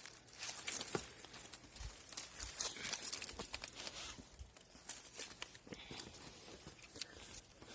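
Footsteps through dry fallen autumn leaves, a run of irregular small crunches and rustles.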